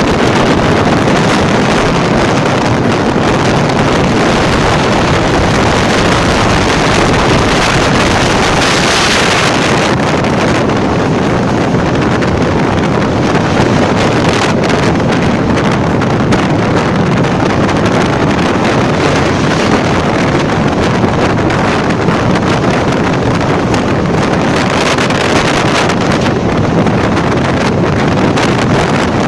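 Train running across a steel truss railway bridge: a loud, steady rumbling of the wheels on the rails and bridge, with wind buffeting the microphone.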